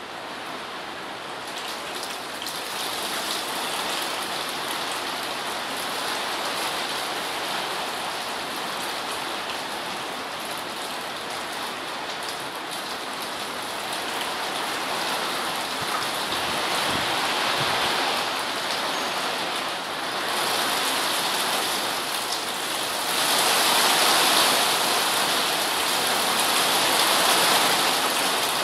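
Rain and graupel pelting down in a gusting storm wind, a dense hiss that builds steadily louder, with strong surges about 20 and 23 seconds in.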